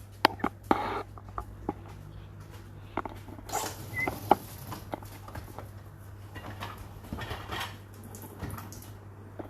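Scattered light clicks, knocks and rustling from dishwasher racks and dishes being handled during an inspection, over a steady low hum.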